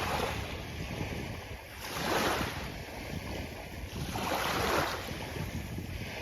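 Sea waves washing onto a beach: three swells of surf about two seconds apart, each rising and fading, over a constant low rumble.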